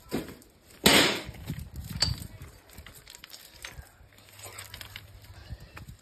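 Rustling and crunching handling noise from a phone being carried through garden plants, with one loud crunch about a second in and scattered light knocks after.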